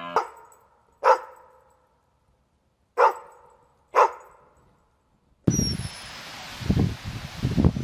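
A dog barking four times, single sharp barks with a ringing tail, the first two a second apart and the last two a second apart. About five and a half seconds in, the sound cuts to outdoor noise with low knocks and faint high bird chirps.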